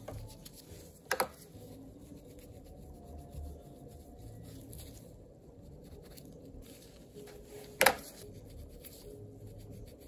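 Soaked gel polish being scraped off a fingernail with a metal nail tool: a soft, steady rubbing and scraping. Two sharp clicks stand out, one about a second in and one near the end.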